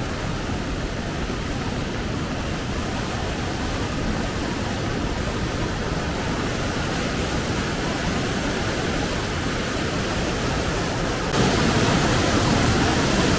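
Flood-swollen, muddy creek rushing with a steady roar of water. About two seconds before the end it gets suddenly louder, where the water churns through rapids.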